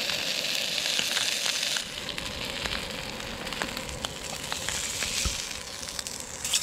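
Rainbow trout fillets sizzling in a hot stainless steel pan, with a few clicks and scrapes of a spatula. The sizzle is strong at first and drops to a softer sizzle about two seconds in.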